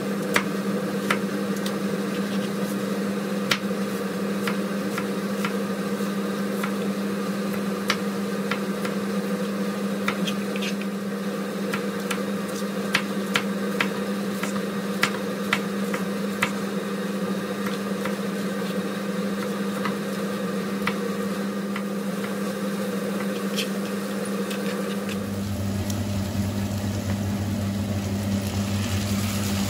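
A steady machine hum with scattered light clicks; about 25 seconds in, the hum shifts to a lower pitch.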